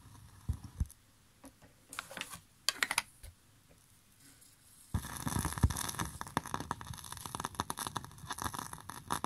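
A few sharp clicks and knocks while a 7-inch vinyl single is changed on a turntable. From about five seconds in, the stylus rides the record's lead-in groove with a steady surface crackle and pops.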